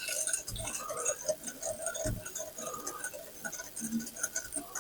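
Whisk stirring a cocoa, sugar and milk mixture in a glass bowl, with quick light ticks of the whisk against the glass and a few soft knocks.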